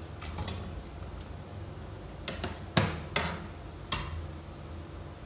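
Metal ladle knocking against a stainless steel pot about five times, sharp clinks with a short ring, as potato sticks are stirred while blanching in boiling water. A steady low hum runs underneath.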